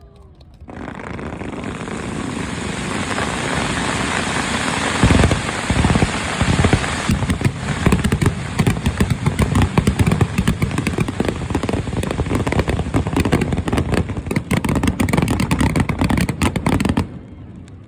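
Fireworks going off: a hissing rush that builds for a few seconds, then a dense barrage of rapid crackling and bangs, which stops abruptly about a second before the end.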